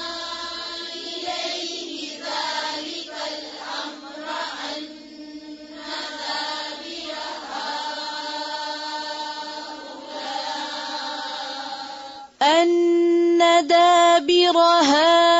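Quranic recitation in tajweed style: a voice chanting in long, drawn-out held notes. About twelve seconds in, the recitation turns suddenly much louder and clearer.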